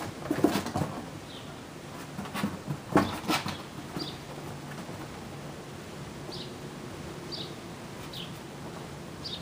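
Kittens' claws scrabbling and thumping on a cardboard box ramp, in bursts during the first second and again around two to three and a half seconds in. A bird chirps briefly every second or so in the background.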